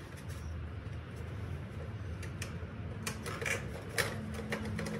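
Plastic fairing panels on a Suzuki GSX-R750 being handled and pried loose: scattered clicks and light knocks, sharper and more frequent in the second half, over a low steady hum.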